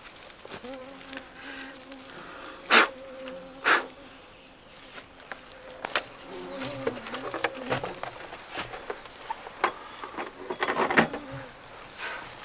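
Flying insects buzzing, the drone coming and going as they move about. Two sharp knocks about three and four seconds in, and a flurry of clicks and rustling near the end.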